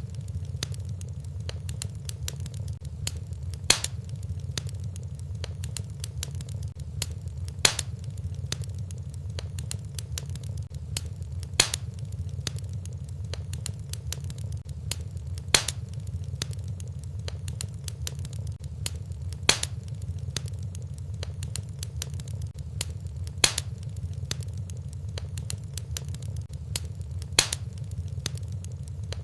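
Wood fire in a fireplace crackling over a steady low rumble, with many small ticks and a louder, sharper pop about every four seconds.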